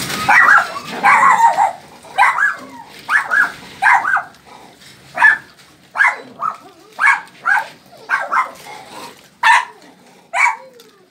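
Dog barking repeatedly: short sharp barks, often two in quick succession, around twenty of them.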